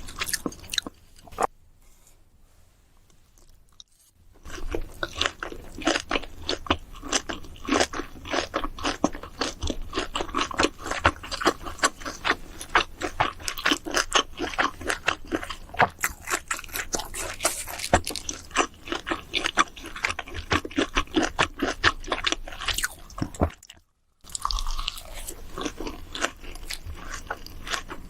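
A person chewing and crunching mouthfuls of food close to the microphone, in dense, quick wet clicks. It is quiet for the first few seconds. The chewing stops briefly shortly before the end, then resumes.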